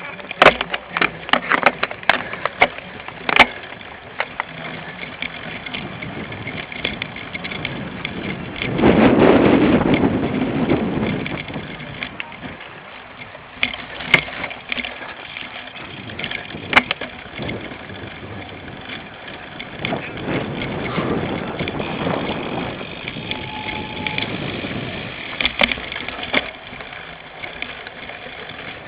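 Cyclocross bike ridden hard over rough ground, heard from a handlebar-mounted camera: the chain and frame rattle, with many sharp knocks over the first few seconds and two longer stretches of louder rushing noise.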